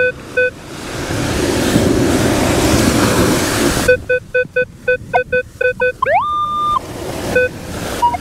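Minelab Equinox 900 metal detector giving short, evenly spaced beeps, then about three seconds of surf wash, then faster beeps at about four a second and a quick rising tone that holds for under a second.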